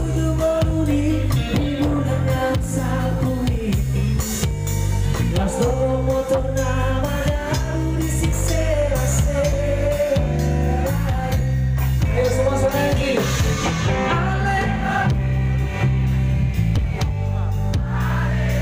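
A live band playing on stage with singing: a drum kit keeps a steady beat under bass, guitar and a melody line, loud and unbroken.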